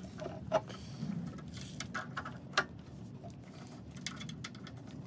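Scattered light clicks and metallic clinks of hand tools and parts being handled and set down, over a faint low hum.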